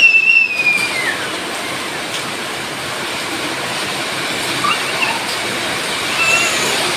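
Heavy rain pouring steadily, an even hiss. A high call slides down in pitch in the first second, with a few faint short chirps later on.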